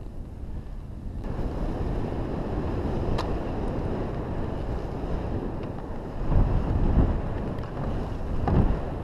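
Wind rushing over a helmet-mounted camera's microphone as a kite-skier glides over snow, swelling about six seconds in and again near the end as the skis carve a turn through soft snow.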